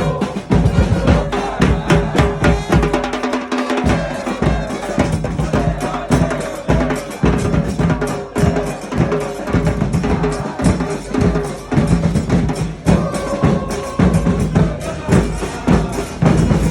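Football supporters' band playing: drums and bass drum beat a fast, steady rhythm under held melody notes.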